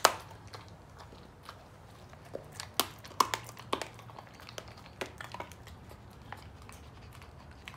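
A dog chewing and crunching a hard, chewy chicken-wrapped treat: irregular sharp crunches, thickest about three seconds in, thinning out toward the end.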